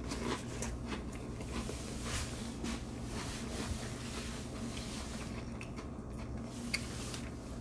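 Quiet chewing close to the microphone: soft, irregular small clicks and squishes over a steady low hum.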